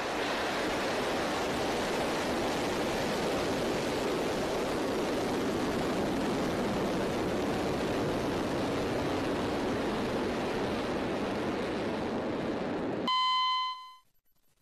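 A steady rushing noise that holds even, then stops about thirteen seconds in, where a pitched electronic beep sounds for about a second. A short silence follows the beep.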